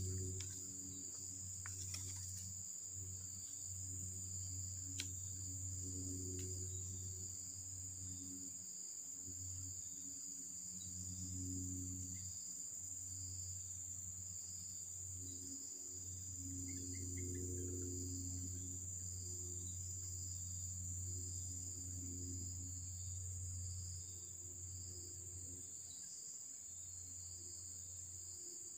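Insects chirring steadily at a high pitch, with a slow pulsing, over a low droning hum that drops out briefly a few times. A few faint clicks in the first few seconds.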